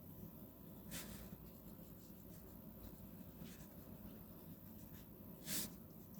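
0.5 mm lead of a Uni Shalaku mechanical pencil writing on paper: faint scratching, with a few short, sharper strokes, the loudest about five and a half seconds in.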